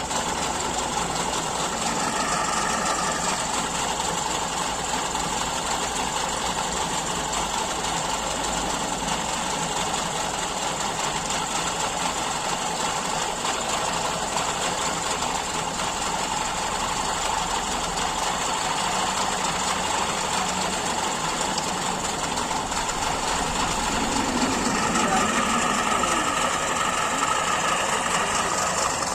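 Speedboat engine running steadily at idle, with a slight rise in loudness near the end.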